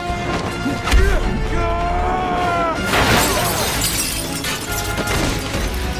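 Dramatic film score under fight sound effects: a heavy thud about a second in, then a loud crash with glass shattering as a body hits a parked car, and a smaller crash about two seconds later.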